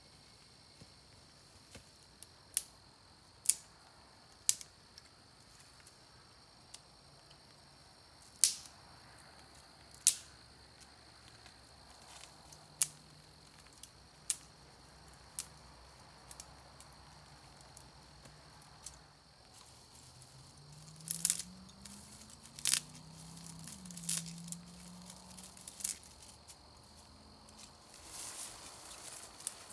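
Small dry twigs snapped by hand: a series of sharp, irregularly spaced cracks, with a steady high insect drone behind them.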